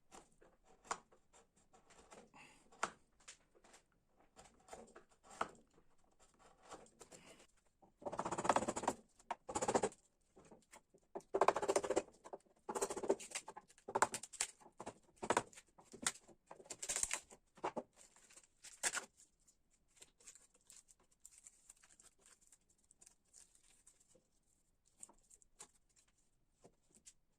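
Hand work on a wooden piece: irregular scraping strokes and light taps. They are faint at first, grow louder and denser about eight seconds in, then thin out to faint scratches for the last several seconds.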